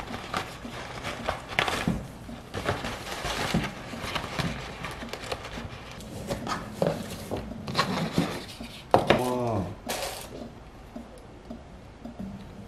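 Dishes and cutlery clinking and knocking on a table in a series of short, irregular clicks.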